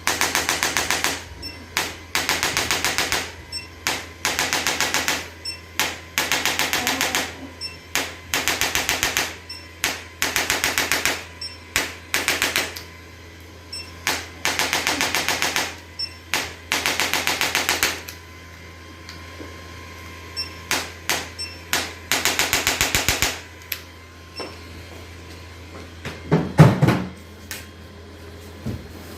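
Handheld percussion instrument clattering in about ten short bursts of rapid, even clicks, each lasting about a second, with scattered single clicks between them. A loud low thump comes near the end.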